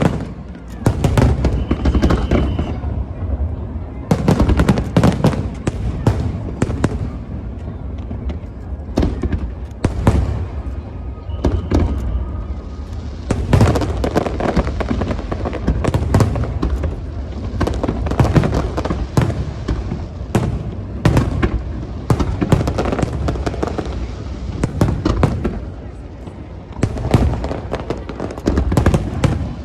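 Aerial fireworks display: shell after shell bursting in rapid, continuous succession, sharp bangs and crackles over a constant deep rumble.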